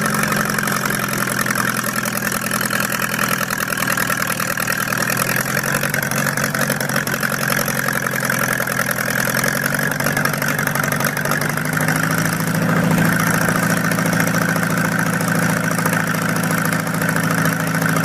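Old farm tractor's engine idling steadily, picking up speed slightly about eleven seconds in.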